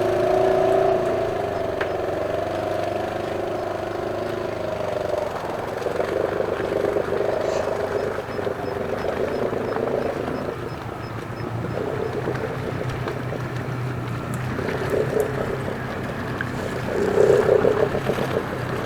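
Side-by-side UTV engine running under load, its note wavering, easing off around the middle and revving up again near the end.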